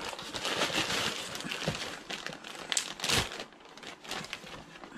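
Mail packaging crinkling and rustling as it is handled and unwrapped, dense for the first three and a half seconds, then a few lighter crinkles about four seconds in.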